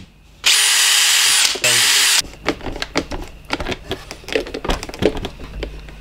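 DeWalt power drill running in a burst of about a second, then a brief second burst, boring small pilot holes for screws in the plastic door trim panel. After it come a string of light clicks and knocks.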